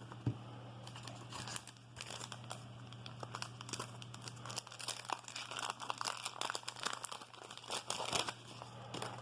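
Wax-paper wrapper of a 1988 Donruss baseball card pack being torn open and crinkled, a run of irregular crackles and rustles, with a single thump just after the start. A low steady hum runs underneath.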